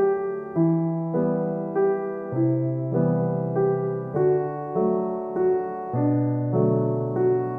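Background piano music: soft chords and notes struck at an even pace, about one every half second or so, each fading before the next.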